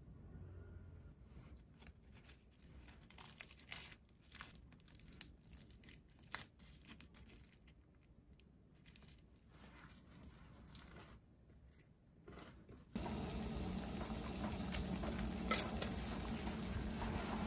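Fresh butterbur leaves crinkling and rustling as hands fold them around rice, with scattered small clicks. About thirteen seconds in this gives way to the steady rush of a pot of water at a rolling boil, with one sharp clink partway through.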